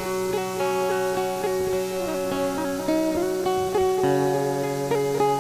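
Background music: acoustic guitar picking and strumming a steady tune.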